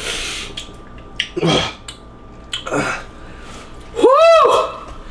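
Human distress sounds from the burn of extremely hot noodles: breathy exhales and short groans, then a loud, high-pitched cry that rises and falls about four seconds in.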